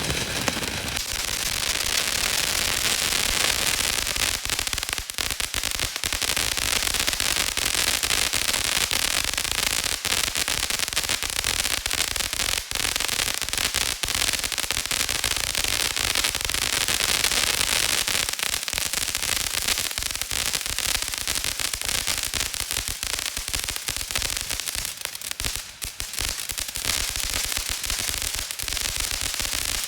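500-gram firework fountain burning: a steady hissing spray of sparks thick with rapid crackling.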